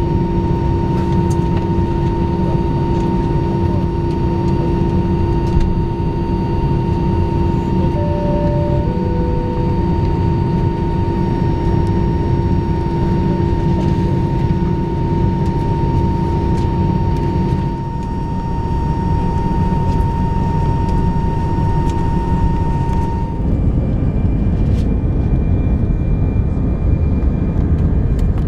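Airbus A319 cabin noise while taxiing: a steady low rumble of engines and air systems with a thin, steady whine. A two-tone high-low cabin chime sounds about eight seconds in. Near the end the whine drops away and the rumble grows a little louder.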